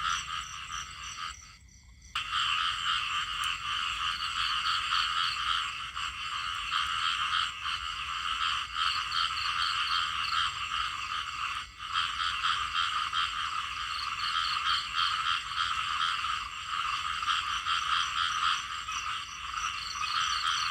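Chorus of small frogs (khiat) calling, many rapid pulsed calls overlapping. The chorus drops away briefly about two seconds in and picks up again.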